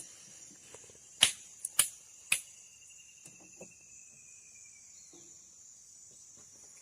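Steady high-pitched insect chorus, with three loud sharp clicks or knocks and a smaller one in quick succession over about a second, starting a little over a second in. A faint thin whistle falls slowly in pitch after them.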